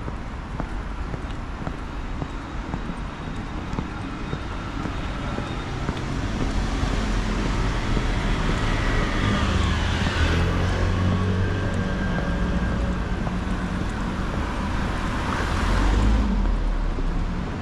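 Street traffic: a steady hum of road noise, with motor vehicles passing close by, loudest about ten seconds in and again near sixteen seconds.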